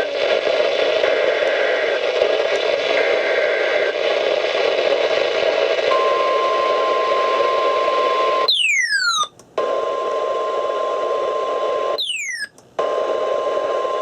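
NOAA Weather Radio alert heard through heavy static. Near the start, the SAME data header bursts faintly three times. About six seconds in, the steady warning alarm tone begins, signalling a severe thunderstorm warning; it is broken twice by brief dropouts with falling chirps.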